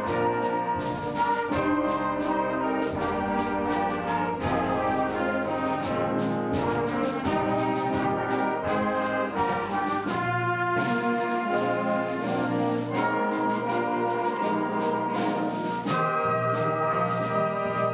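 Middle-school concert band playing, brass and woodwinds holding full chords over steady percussion strokes.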